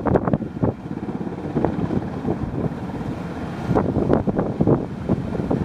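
Wind buffeting the microphone over a steady low rush of sea water churning between two ships running side by side.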